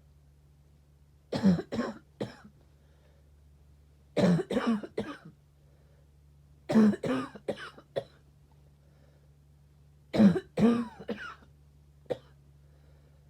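A sick person coughing in four fits of three to five coughs each, the fits about three seconds apart, then one lone cough near the end.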